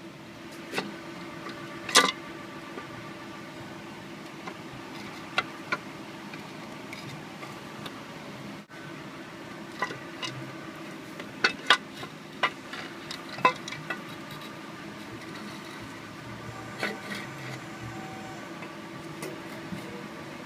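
Scattered sharp clicks and clinks of hand tools and bolts against metal, the loudest about 2 s in and a cluster around the middle, over a steady low hum.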